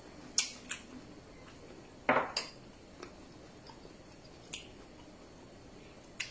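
A metal spoon clicking against a ceramic soup bowl a few times, with a louder knock about two seconds in as the bowl is set down on the countertop.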